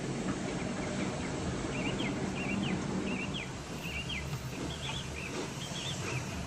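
Steady rumble of a train running past, with birds chirping in quick short calls from about a second and a half in until around five seconds.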